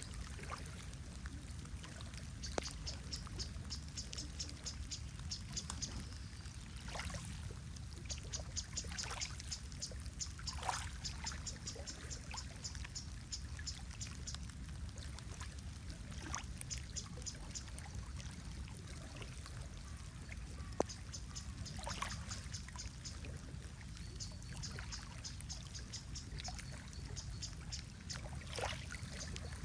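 Water trickling and lapping over a steady low rumble, with scattered drips. Runs of rapid, high-pitched chirping come and go, about five notes a second, in stretches of a few seconds each.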